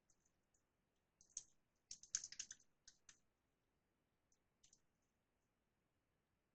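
Faint computer keyboard keystrokes in near silence: a quick burst of typing about two seconds in, with a few single key presses before and after.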